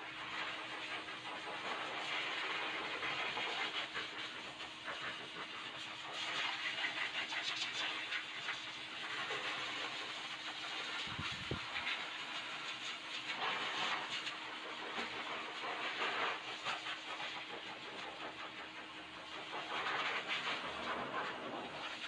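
Blow dryer running steadily: a rush of air over a motor hum, swelling and fading every few seconds as it is moved over a freshly bathed dog's coat.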